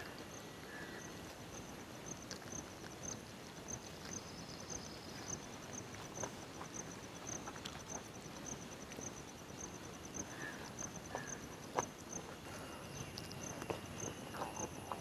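An insect chirping steadily in short, high-pitched pulses, about three a second, over faint clicks and rustles of hands eating rice off banana leaves.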